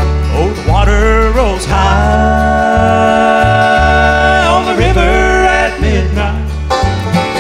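Bluegrass band playing live. Steady low bass notes sound under a long held melody note that slides up into pitch, holds for a couple of seconds and bends off near the middle of the stretch.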